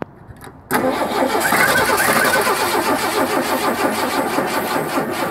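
Starter cranking the 232 cubic-inch (3.8 L) V6 of a 1982 Ford F100, a loud, rhythmic turning-over that begins abruptly a little under a second in and stops near the end without the engine catching. The engine will not start after a 2150 carburetor rebuild.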